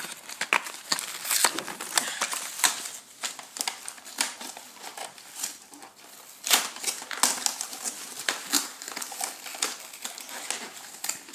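Scissors snipping through the cardboard ties that hold toy blaster parts in their packaging tray, with the cardboard rustling and crinkling as it is handled: a quick, irregular run of sharp snips and crackles.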